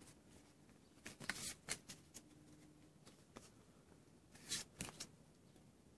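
Faint rustles and flicks of Pokémon trading cards being handled and slid one behind another, with a few soft clicks about a second in and again near the five-second mark, otherwise close to silence.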